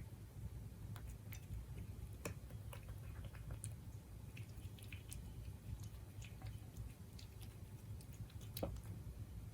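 A Siberian cat eating its dinner: irregular small clicks and smacks of chewing over a low, steady hum.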